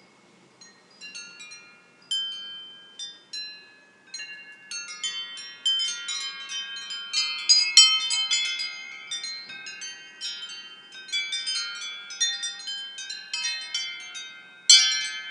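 Metal wind chimes stirred by gusty wind, starting with a few scattered strikes and building after a few seconds into dense, overlapping ringing, with a sharp loud cluster of strikes near the end.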